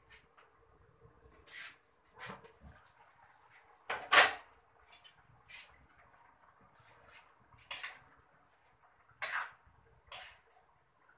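Metal spatula scraping and knocking against a wok in short, irregular strokes as chicken is stirred and sautéed before the soy sauce and vinegar go in; the loudest clank comes about four seconds in.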